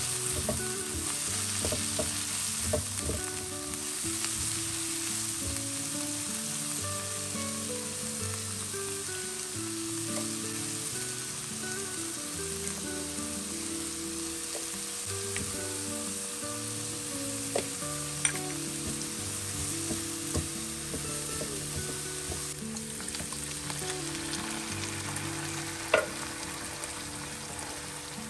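Oil sizzling steadily as diced tempeh is stir-fried in a wok, with the spatula stirring through it and a few sharp clicks in the second half. A soft background melody plays underneath.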